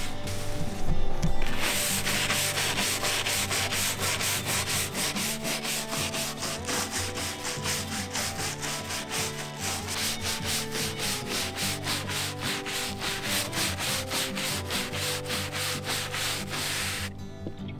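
Stiff-bristled hand scrub brush scrubbing the wet, charred sugi wood of a yakisugi fence cap in quick, even back-and-forth strokes, washing off dirt with a TSP solution.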